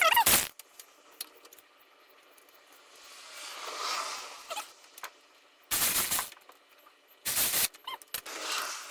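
Three short bursts of rapid rattling from a tool running down the timing cover bolts: near the start, about six seconds in and again a second and a half later.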